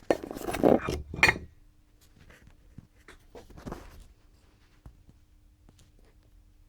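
A burst of rattling and clattering as small hard objects are handled, followed by a few lighter clicks and knocks. A faint steady hum runs underneath.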